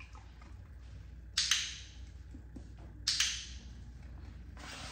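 Two sharp double clicks about a second and a half apart, each with a brief echo off the walls of a bare garage.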